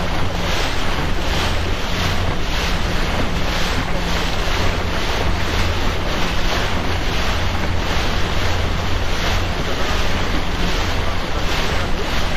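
Motorboat underway: wind buffeting the microphone and water rushing and splashing along the hull in regular slaps, over a steady low hum.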